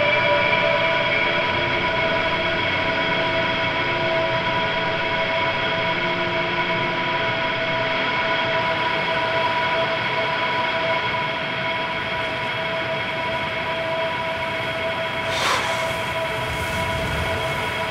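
Ambient post-rock drone: a sustained chord of many steady tones that holds and slowly shifts, with one short sharp noise about fifteen seconds in.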